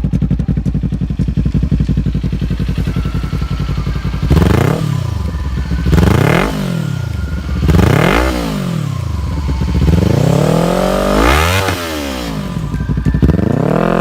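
Kawasaki Ninja 400 parallel-twin engine fitted with a Yoshimura slip-on exhaust. It idles steadily, then is revved repeatedly from about four seconds in, with about five rising and falling blips.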